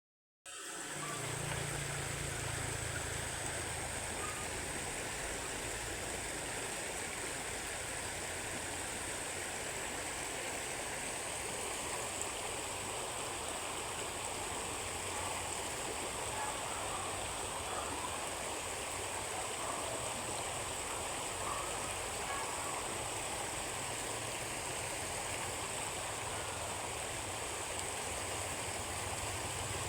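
Steady rush of flowing water, unchanging throughout, with a thin, steady high tone running over it.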